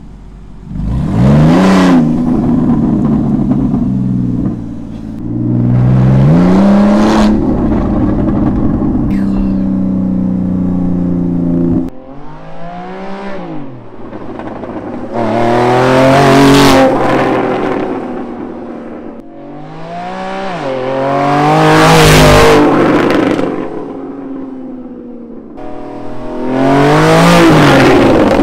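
Porsche Cayman S flat-six on a straight-pipe exhaust (a Fabspeed Super Cup race exhaust with the resonators removed), accelerating hard with repeated rising revs. At first it is heard from inside the cabin; from about halfway it is heard from the roadside, where the car revs up and passes loudly several times.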